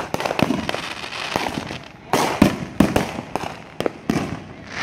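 Fireworks going off: many sharp bangs and crackling pops in quick succession, loudest about two and a half seconds in.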